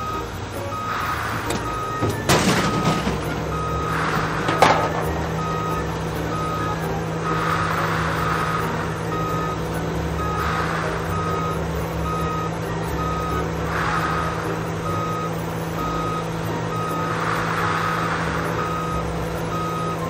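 Garbage truck reversing alarm beeping over and over in an even rhythm, over the truck's engine running. A couple of sharp knocks with a hiss come a few seconds in.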